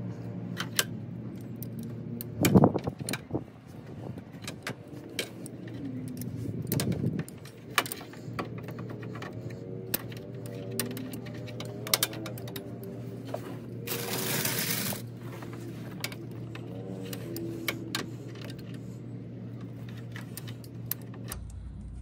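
Pliers clicking and clinking against the radiator drain petcock as it is turned closed, with a loud clack a few seconds in and a brief rushing noise about two-thirds through, over a low steady hum.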